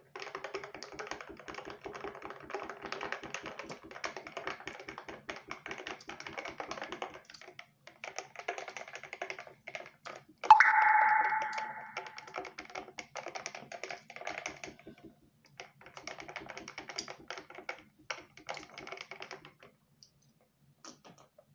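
Close-miked chewing and wet mouth clicks, coming fast and packed together in long runs. About ten and a half seconds in, a louder sudden sound starts and fades over a second or so. The eating stops about a second before the end.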